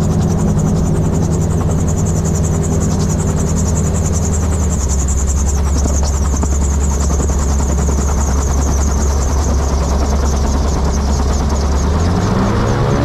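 Gyroplane engine and pusher propeller running at low power under a steady rush of wind and spinning-rotor noise during the ground roll. The engine note drops about five seconds in and rises near the end as power comes back up.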